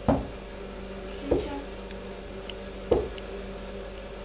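Three dull knocks on a wooden door, about a second and a half apart, over a steady low hum.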